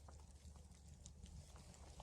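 Near silence: faint low background hum with a few tiny ticks.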